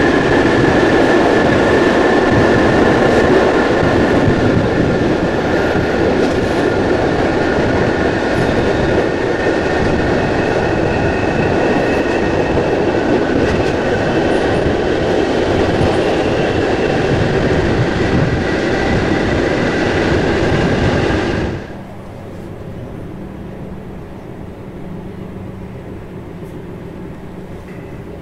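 Modernised SNCB AM80 electric multiple unit running on the rails, heard from inside: loud steady running noise with clickety-clack and a few steady high whines from the electric traction equipment. About 21 seconds in, the noise drops abruptly to a quieter low hum.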